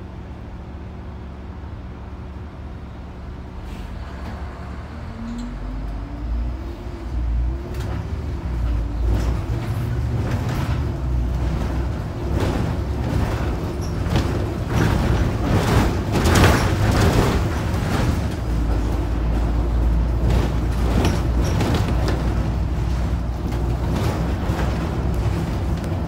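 Volvo 7700 city bus heard from inside the cabin, its diesel engine idling at a stop and then pulling away: the engine note rises in steps about five seconds in and gives way to louder, steady engine and road noise as the bus picks up speed.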